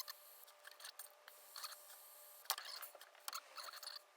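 A butane torch lighter in use: several quiet clicks over a faint steady hiss as its flame is held to heat-shrink tubing.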